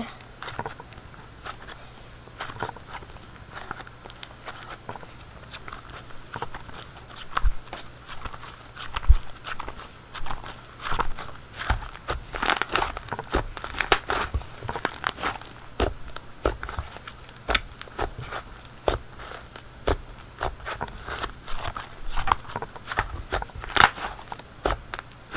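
Hands kneading a soft clay-and-lotion slime, with irregular wet squishes and crackling air pops that keep coming at varying loudness.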